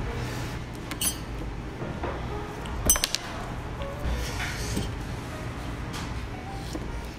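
A few sharp clinks of dishware, about one second and three seconds in, over a low steady hum and faint background music.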